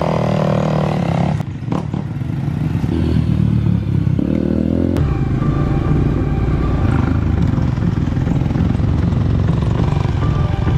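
Dirt bike engines running and revving as the riders pull away, with a couple of sharp knocks about a second and a half in. About halfway through it switches abruptly to a steadier, deeper engine sound, heard from a dirt bike being ridden.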